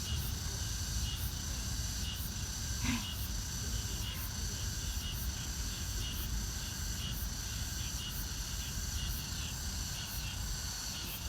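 Insects chirping in a steady high chorus, with faint chirps repeating about one and a half times a second, over a low rumble. A single short sharper sound comes about three seconds in.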